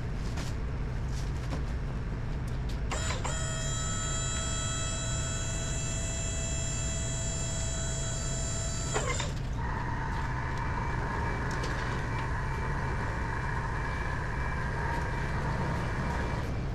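Wood-Mizer LT35 hydraulic sawmill running with a steady hum. About three seconds in, a high whine starts and cuts off sharply some six seconds later. A lower whine follows as the sawhead carriage is driven along the bed, and it stops near the end.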